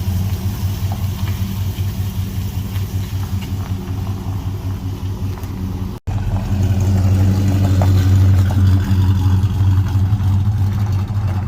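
2007 Chevrolet Avalanche's V8 engine idling steadily, with a deep low hum. The sound breaks off for an instant about six seconds in, then picks up a little louder.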